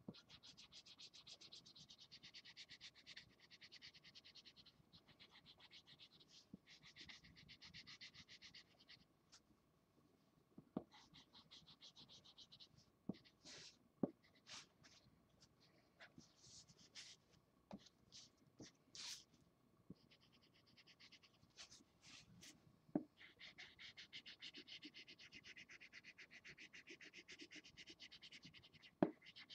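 Felt-tip marker scribbling on paper, faint: fast back-and-forth colouring strokes in spells of a few seconds, with a few sharp taps in the pauses between them.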